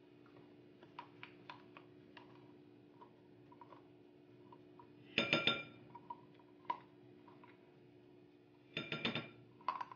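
A ribbed glass mixing bowl clinking as the small measuring cup and metal whisk held in it knock against it: light ticks in the first seconds, then two louder ringing clinks about five and nine seconds in. A faint steady hum runs underneath.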